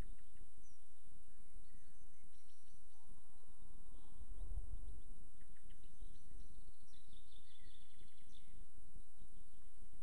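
Riverside nature ambience: faint birds chirping, with a busier run of chirps about three-quarters of the way in, over a steady low rumble that swells about halfway through.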